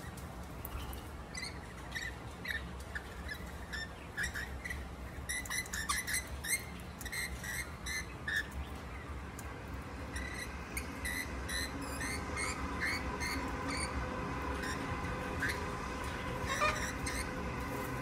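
Wild birds chirping: many short, high chirps coming in quick clusters, over a steady low hum.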